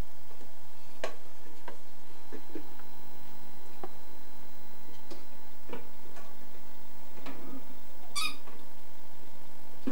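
Hollow plastic bottle being nosed, pushed and carried about on carpet by a puppy: irregular light knocks and clicks every second or so, with one sharper, higher scrape about eight seconds in.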